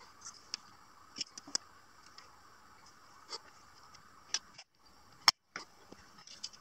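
Faint scattered clicks and light scrapes of a self-adhesive LED strip and thin plywood pieces being handled on a tile floor, with one sharper click about five seconds in.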